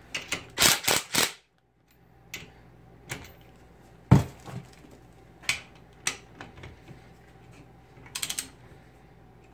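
Cordless 3/8-inch impact wrench hammering in a few short bursts on a nut held in a bench vise, running the nut down for about the first second. Then scattered knocks and clicks of tools being handled, with a quick run of ratchet clicks near the end as a torque wrench goes onto the nut.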